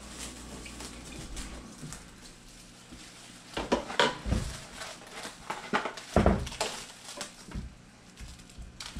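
Plastic cling wrap being pulled off its roll and pressed over a ceramic baking dish: irregular crinkling and rustling with a few knocks against the dish, loudest about four and six seconds in.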